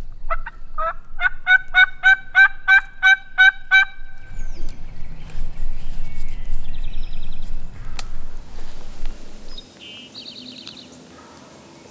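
A run of about a dozen turkey hen yelps, evenly spaced at a little over three a second, in the first four seconds. Later come a few faint, short, high bird chirps and one sharp click about eight seconds in.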